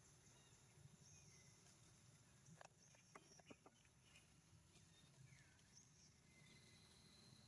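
Near silence: faint outdoor background with a few soft clicks about three seconds in and some faint high chirps.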